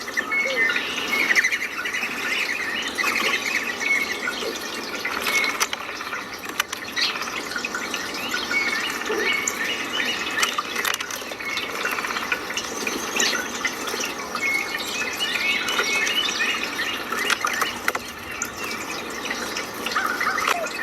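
Many small birds chirping and twittering, quick short calls throughout, over a steady rush of running water.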